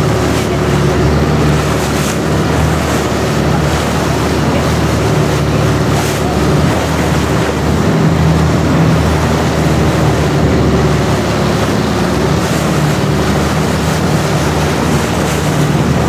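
Long-tail boat's engine running steadily at cruising speed, a loud low drone with a constant pitch, over a steady rush of wind and water.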